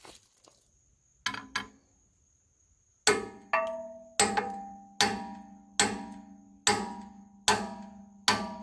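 Hammer blows on a steel tool held against the stuck gib key in the flywheel hub of an International Harvester Type M 6 hp engine, each blow ringing with a metallic tone. Two quick knocks about a second in, then eight steady blows at a little under one a second.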